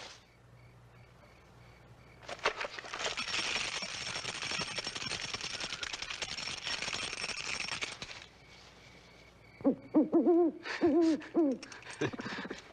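A long crackling hiss lasting about six seconds, then, from about ten seconds in, an owl hooting loudly in a rapid run of short rising-and-falling hoots.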